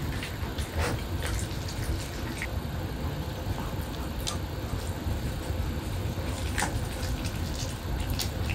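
Pomeranian chewing food, with wet mouth smacks and a handful of sharp clicks spread through, over a steady low background hum.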